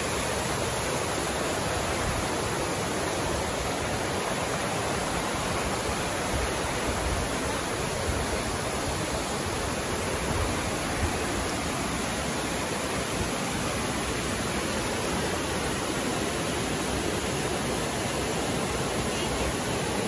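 Steady rush of a small waterfall and cascade pouring over rock ledges, an even continuous roar of water.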